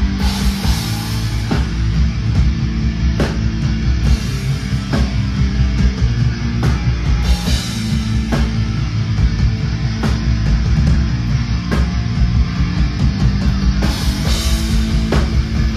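Atmospheric black metal band playing live and loud: distorted electric guitars over a heavy drum kit. A sharp accented drum hit comes about every second and a half, with crashing cymbals at the start, around the middle and near the end.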